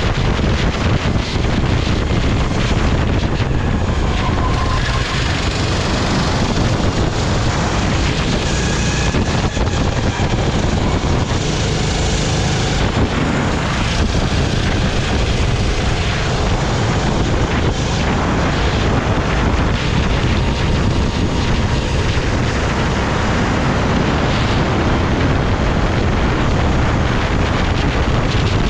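Sodi rental go-kart's engine running at speed on track, heard from the kart's own onboard camera, with heavy wind buffeting on the microphone; the noise stays loud and steady throughout.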